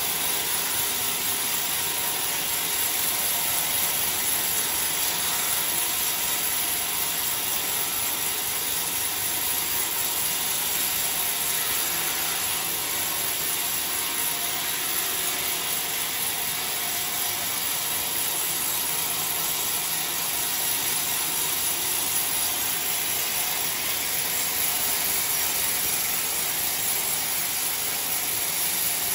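Homemade band sawmill's blade cutting steadily along a coconut-palm log: a continuous, even sawing noise from the blade and machine.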